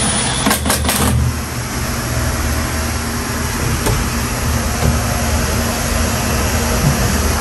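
Milwaukee cordless driver running as it tightens a cable terminal screw on an electricity meter, stopping with a few clicks about a second in. A steady low hum continues after it.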